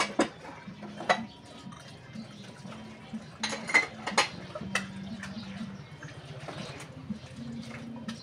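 Dishes and cups clinking and clattering as they are washed and set into a plastic dish rack, with scattered sharp knocks that are loudest in a cluster around the middle.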